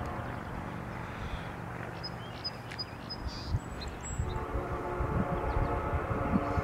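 Distant EMD SD70M-2 diesel locomotive approaching at the head of a freight train, heard as a low steady rumble. About four seconds in, its air horn begins sounding a sustained chord.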